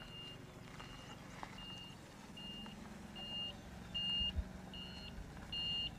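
Vehicle reversing alarm beeping steadily, one high beep about every 0.8 seconds, getting louder over the second half, over a low, steady hum.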